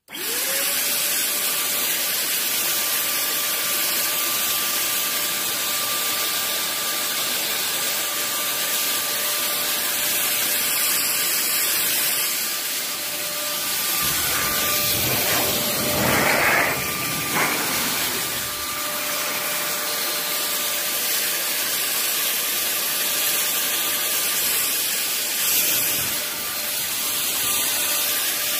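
Electric cold fogger (ULV sprayer) spraying insecticide mist. Its motor spins up at the start, then holds a steady whine over a loud hiss. The sound grows briefly louder and rougher about halfway through.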